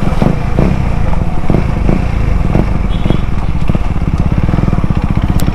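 KTM Duke 250's single-cylinder engine running steadily through its modified exhaust as the bike is ridden at low speed, with a few short sharp knocks in the first couple of seconds.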